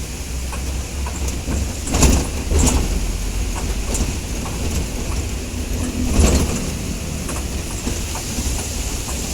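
Heavy rain pouring down with a low rumble from wind on the microphone, steady throughout, with louder clattering surges about two seconds in and again about six seconds in.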